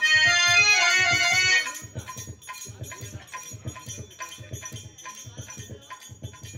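Harmonium plays a loud phrase of held notes stepping in pitch that stops after about a second and a half; a dholak keeps a steady rhythm of low drum strokes with light jingly percussion under it throughout.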